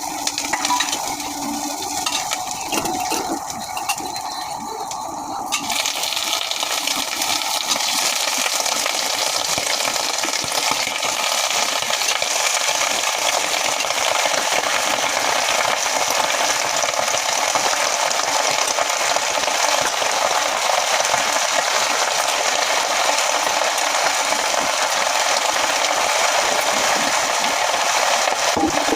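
Sabzi sizzling steadily in a hot pan, with a few clinks of a spoon against the pan in the first few seconds. The sizzle gets louder about five seconds in.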